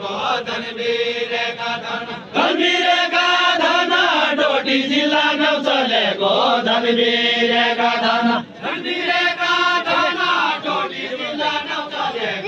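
A Deuda folk song sung as a slow, chant-like melody, with long held notes in phrases broken by two short breaths.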